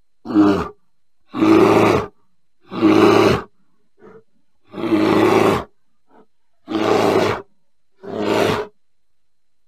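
A bear calling: six short, rough calls, each under a second long, coming about once every second and a half with brief silences between.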